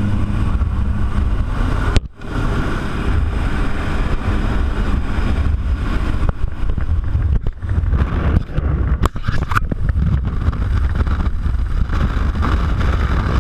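Loud, steady rush of wind and the jump plane's engines and propellers at the open door in flight, buffeting the microphone. The level dips briefly about two seconds in, and there are a couple of short knocks near nine seconds.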